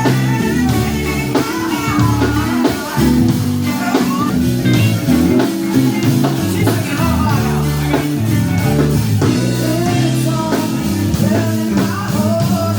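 Background music: a song with singing over a bass line and a steady beat.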